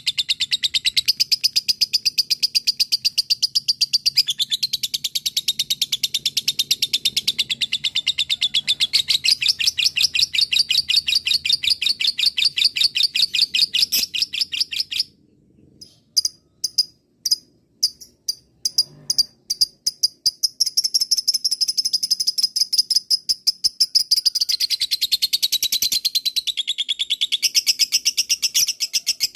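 Lovebird 'ngekek' song: a long, rapid chattering trill of high chirps. About halfway it breaks off into a short pause with a few scattered chirps, then the trill starts up again.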